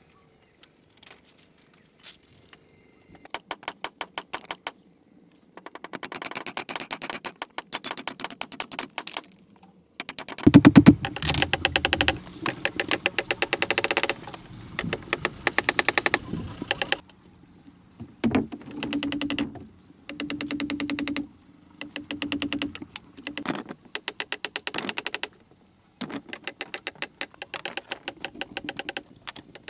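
Rattan canes being worked on a split-bamboo floor: fast, even rattling clicks in repeated bursts of one to two seconds, sparse at first and denser and louder from about ten seconds in.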